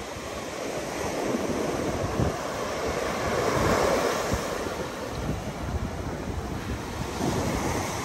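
Ocean surf breaking and washing up the sand, with wind buffeting the microphone; a wave swells loudest about halfway through.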